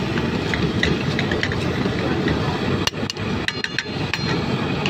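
A metal ladle and tongs clinking and scraping against a small steel pan of keema, with a cluster of sharp clinks about three to four seconds in, over a steady low roar.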